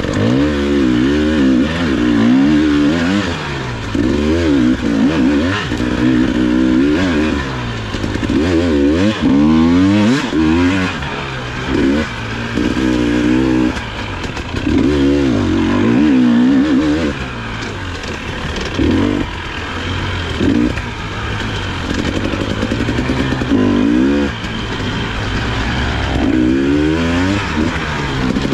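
Dirt bike engine revving up and down in repeated bursts, its pitch climbing and falling every second or two as the rider rolls on and off the throttle.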